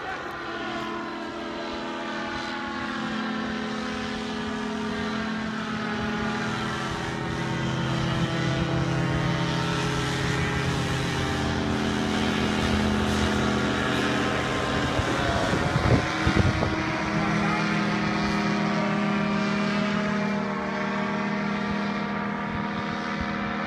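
Powered paraglider engine and propeller running steadily, its pitch sagging and then rising again midway. A few low thumps come about two-thirds of the way through.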